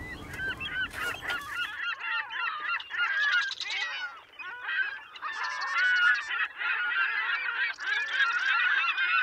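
A flock of birds calling, many short calls overlapping densely, with a rushing noise under them for the first couple of seconds.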